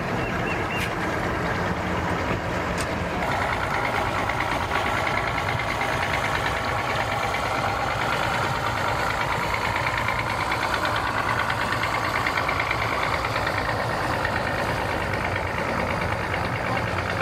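Outboard motor running at low speed, a steady engine drone with a fine rattle, as a boat is maneuvered slowly in the water.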